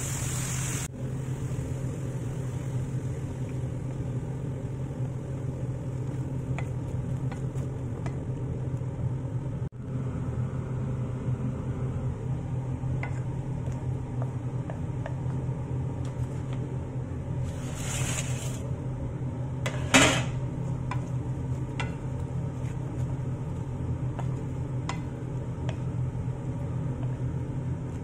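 A steady low electric motor hum runs under faint taps and scrapes of a wooden spatula stirring in a frying pan. About 18 seconds in there is a short rush of noise, and about 20 seconds in a sharp clatter, the loudest sound.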